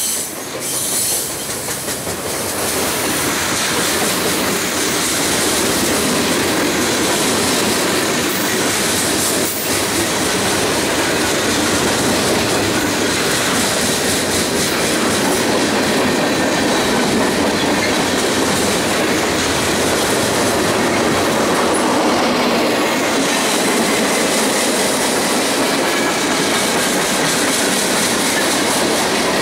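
Freight cars (tank cars, covered hoppers and centerbeam lumber flatcars) rolling past close by at a steady pace: a continuous rumble and clatter of steel wheels on the rails.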